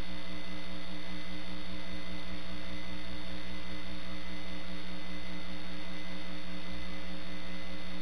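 Steady electrical hum with several fixed tones over faint hiss, at an even level throughout.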